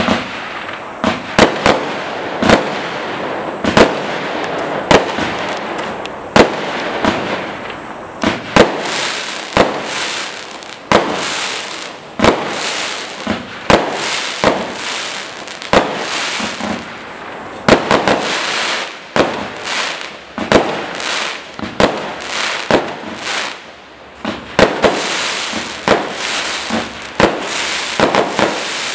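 Black Cat Ascension compound firework cake firing: a rapid series of shots bursting overhead, about one or two sharp reports a second, with a steady crackling fizz between them.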